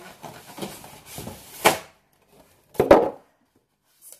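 Cardboard box and packaging being handled: a rustle ending in a sharp scrape, then a short dull knock about three seconds in.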